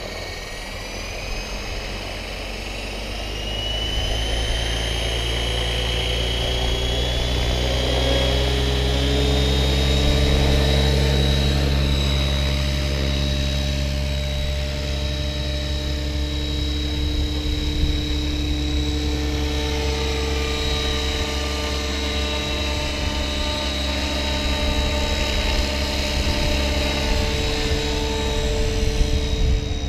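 Align T-Rex 700E electric RC helicopter spooling up. The motor and gear whine rises in pitch over roughly the first ten seconds and the sound grows louder, then the rotor and whine run on steadily at flying speed.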